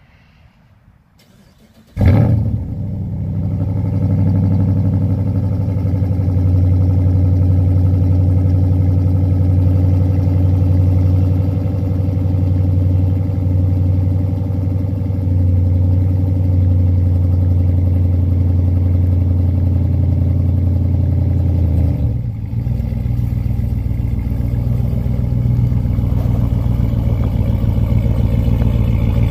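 Ram pickup's 6.4-litre HEMI V8 with its muffler deleted, starting up about two seconds in and then idling steadily with a deep exhaust note. The tone shifts briefly about twenty-two seconds in, then the idle carries on.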